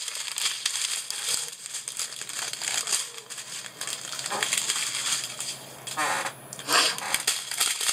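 Small plastic bags of diamond painting drills crinkling and rustling as they are handled and shifted on the mat, in irregular crackly bursts.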